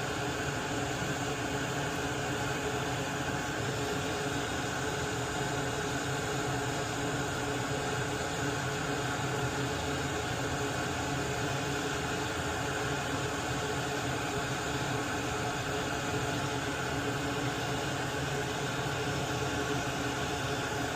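Steady whir and hiss of a fan or blower, with a low hum under it and no change in level.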